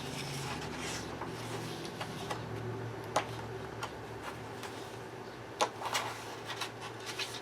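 Paper pages of a coloring book being turned by hand: soft rustling with a few sharp ticks and snaps of the paper.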